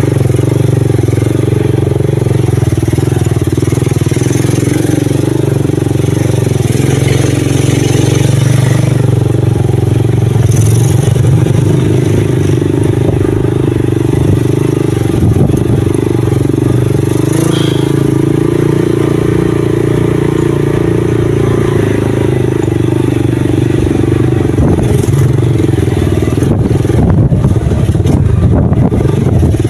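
Motorcycle engine running steadily as the bike is ridden along a rough dirt track, heard from the back seat.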